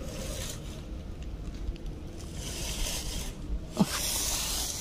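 Intermittent scratchy rustling and scraping, like dry leaves and litter being disturbed, in several short bouts. A brief vocal sound comes near the end.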